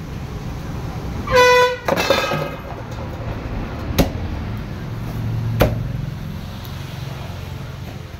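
A vehicle horn honks about a second in, followed straight away by a second, rougher honk, over a steady low traffic hum. Later come two sharp knocks of a cleaver chopping into the fish on a wooden block.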